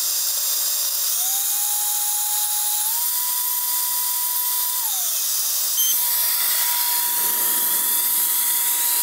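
Audwierr battery-powered electric air duster's high-speed fan motor whining over a rush of air, stepping up in pitch twice in the first three seconds as it is switched through its speed settings. About five seconds in it winds down, then starts again almost at once at a higher, steady pitch.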